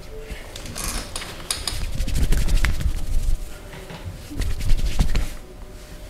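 Hands massaging a man's thigh and knee: rubbing and pressing on skin and shorts, with a rapid run of small clicks and scuffs. It is loudest about two seconds in and again near five seconds.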